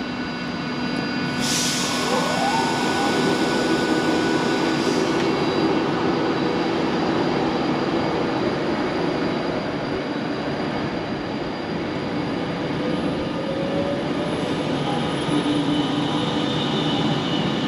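Avanti West Coast express passenger train for Edinburgh via Birmingham running on the West Coast Main Line. It makes a steady loud rumble of wheels and traction with short high hisses early on, and a tone that rises in pitch near the end.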